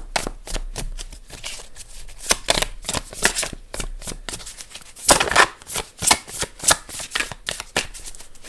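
Deck of tarot cards being shuffled by hand: a quick, irregular run of flicks and soft slaps of card on card, busiest about five seconds in.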